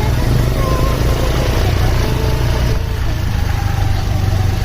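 Road traffic with a large engine running steadily in a deep, even hum, and no horn sounding.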